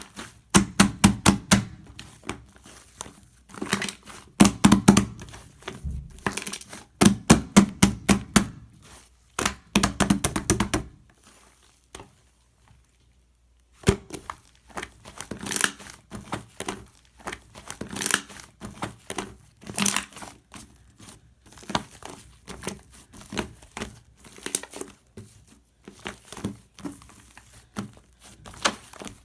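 Shaving-foam slime being squeezed, folded and stretched by hand, with quick trains of crackling, squelching pops from trapped air. The pops come in dense clusters at first, stop for a couple of seconds, then resume more sparsely.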